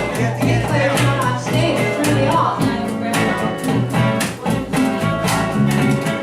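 A band playing at a sound check: guitar with a steady beat of regular strikes, and a singing voice.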